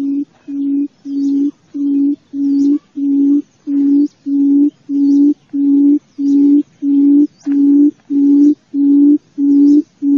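Wild buttonquail (cút rừng) giving its long territorial call: a steady run of low, hollow hoots, about two a second, all at one pitch and evenly loud. It is the call played as a lure for cage trapping.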